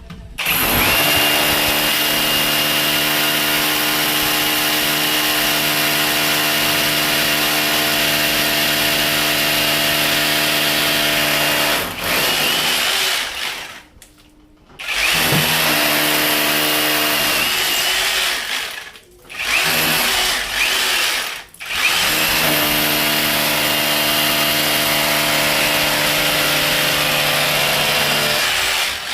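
Cordless drill motor running at a steady high speed with an even whine. It is switched on and off in four runs: a long one, a wind-down and stop about 13 seconds in, two shorter runs, then a long run to near the end.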